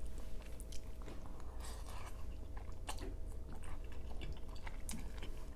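Close-miked mouth sounds of a person chewing creamy crawfish pasta: soft, wet, irregular smacks and clicks.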